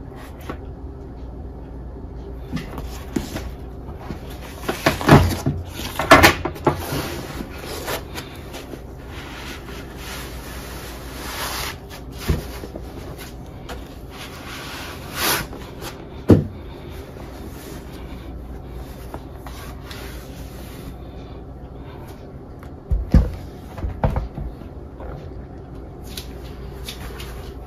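Handling noises of a laptop box and its packaging: scattered knocks and clatters, the loudest about five to seven seconds in and again near the end, with rustling in between, over a steady low hum.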